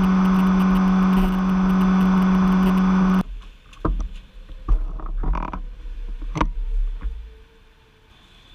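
Yamaha FZ-series inline-four motorcycle engine running at a steady highway cruise, one held note, cut off suddenly about three seconds in. After that come scattered knocks and clicks of gear being handled on the stopped bike, growing quieter near the end.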